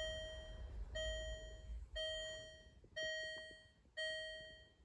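Repeating electronic warning chime from the car, one fading tone about once a second.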